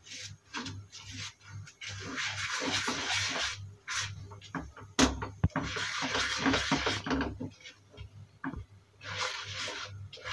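A spatula scraping and stirring a thick milk and milk-powder mixture in a nonstick pan, in repeated sweeps of about a second each. There is a sharp knock about five seconds in.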